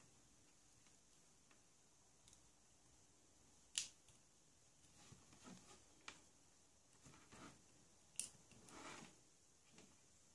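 Near silence with faint handling noise: test leads and crocodile clips rustling, with two sharper clicks about four and eight seconds in, as an LED is clipped onto a bench power supply's output terminals.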